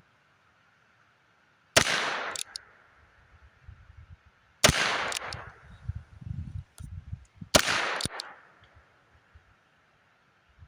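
Three shots from a Heritage Rough Rider single-action .22 LR revolver, about three seconds apart, each a sharp crack with a short fading tail.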